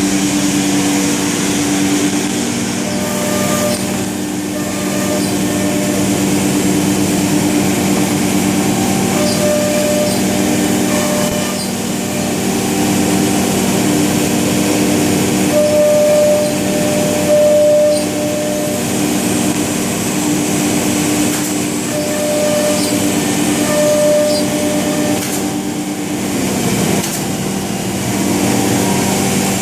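Weeke CNC router running as it cuts wood: a loud, steady machine hum over a high hiss, with a higher tone that comes and goes every second or two as the cut goes on.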